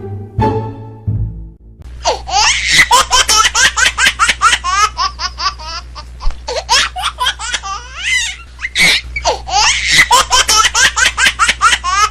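A person laughing hard: a long run of quick, high-pitched laughing pulses starting about two seconds in, with a short break partway through, after the last notes of plucked string music.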